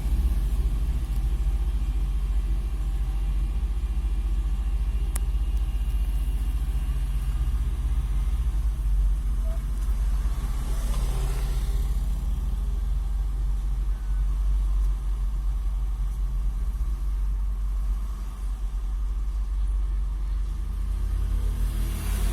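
Heavy diesel machinery of a dump truck and excavator running steadily at low revs, a deep continuous engine rumble. A single sharp click about five seconds in.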